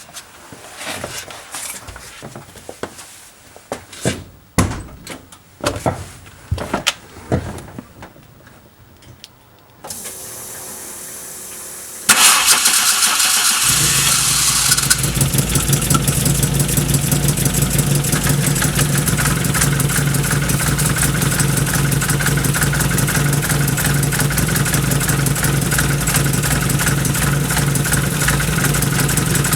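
Scattered clicks and knocks, then a brief steady hum, then the Volkswagen Golf Mk1's engine starts about twelve seconds in and settles into a steady idle through its freshly welded exhaust.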